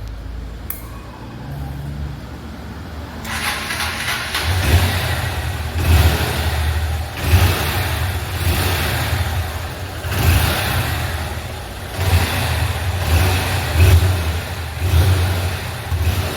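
Honda CG 160 Fan single-cylinder four-stroke engine idling, then revved in repeated short throttle blips, about one every second and a half, from about three seconds in.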